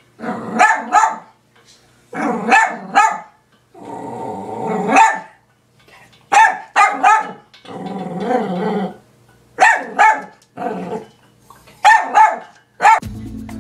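Small dachshund-type dog barking in repeated bursts of three or four quick, sharp barks, with longer low growls between some of the bursts.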